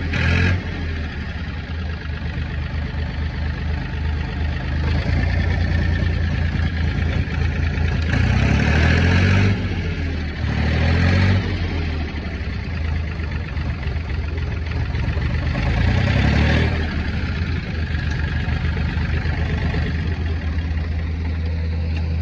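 Ford Industrial 420 backhoe's diesel engine running at a fast idle after a jump start, revved up and back down three times: about eight, ten and a half, and sixteen seconds in.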